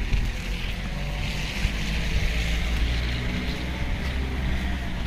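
Road traffic passing on a wet, slushy street: tyre hiss that swells around the middle and eases off, over a low steady rumble.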